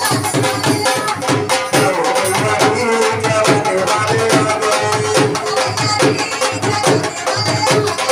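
Live Punjabi folk devotional music: a harmonium playing held chords and a melody over a dhol drum beating a fast, steady rhythm.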